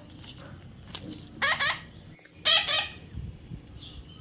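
Parrot giving two short, harsh squawks about a second apart, one roughly a second and a half in and the other near the middle.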